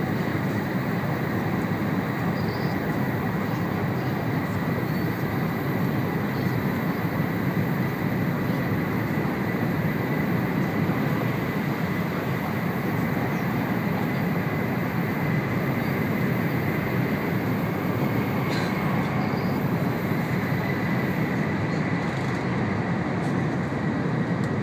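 Steady rumble inside the passenger car of an N700 series Shinkansen running along the line, with a faint steady high whine over it.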